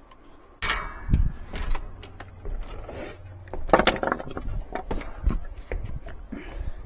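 Irregular knocks, scrapes and clatter of objects being handled and set down, the loudest about a second in and again about four seconds in.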